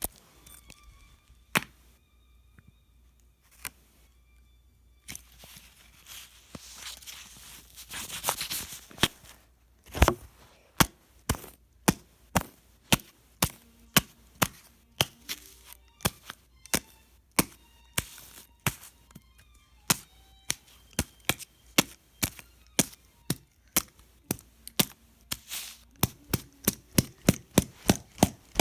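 A long run of sharp knocks like chopping strokes: a few scattered ones, a rising hiss, then a loud knock about ten seconds in, after which they come steadily, somewhat under two a second, and speed up near the end.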